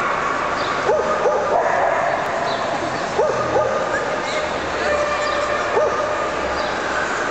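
Dogs giving short, high yips and barks, several times in quick pairs, over a steady background of crowd chatter in a busy show hall.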